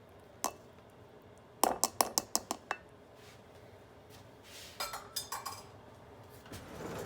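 Kitchenware clinking: a single clink, then a quick run of about seven sharp clinks about two seconds in, like a utensil or measuring cup knocking against a glass bowl, and a few softer clinks a few seconds later.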